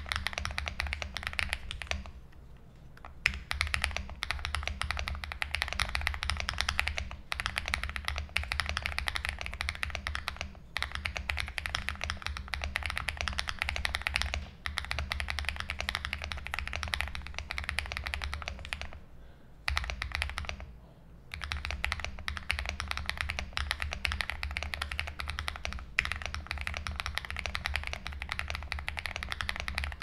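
Furycube F75 mechanical keyboard, stock and unmodified, with factory-lubricated Matcha Latte V2 switches on a polycarbonate plate, being typed on quickly and continuously. There are a couple of brief pauses in the typing.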